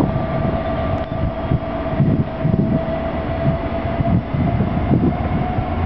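Passenger train pulling away slowly, pushed from the rear by a Class 67 diesel locomotive under power. Its two-stroke V12 engine gives a steady whine over a low, uneven rumble, and the whine rises slightly near the end.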